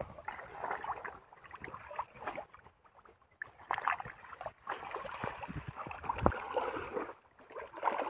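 Hands sloshing and splashing in shallow muddy water, groping through mud and leaf litter for fish, in irregular bursts with short pauses.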